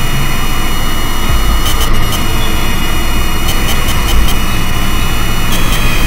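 Loud, steady roar of dense noise with a faint high whine, a low rumble that swells a few times, and scattered crackling clicks: an industrial-style noise drone.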